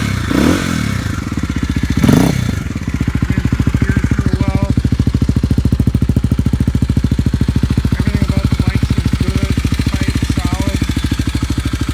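2010 Kawasaki KLX250's single-cylinder four-stroke engine, breathing through an aftermarket exhaust, revved in two quick blips in the first couple of seconds, then settling into a steady, even idle.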